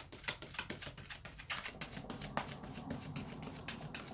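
A deck of tarot cards being shuffled overhand, packets lifted and dropped from hand to hand, making a quick run of soft card clicks and slaps, several a second.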